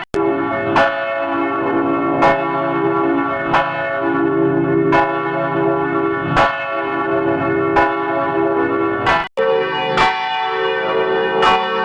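Church bell tolling, one stroke about every second and a half, each stroke ringing on into the next. The sound cuts out briefly just after the start and again about nine seconds in, and after the second break the bell's tone changes and the strokes carry on at a similar pace.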